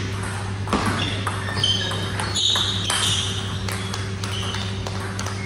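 Table tennis rally ending: a few sharp clicks of the ball off the bats and the table, then some short ringing pings, over a steady low hum in the hall.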